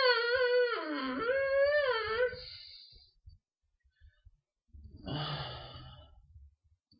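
A long, wavering vocal moan, its pitch bending up and down for about two and a half seconds, followed about five seconds in by a shorter, breathier and lower groan.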